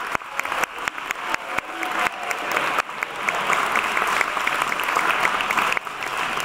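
Audience applauding, with separate sharp claps at first that thicken into dense, steady applause about halfway through.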